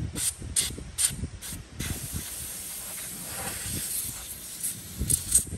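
Aerosol can of CarQuest brake cleaner spraying: several short bursts, then one long spray of about three seconds, then a few more short bursts near the end. The spray is flushing metal drill shavings out of a drilled-out stripped bolt hole in the engine's valley cover.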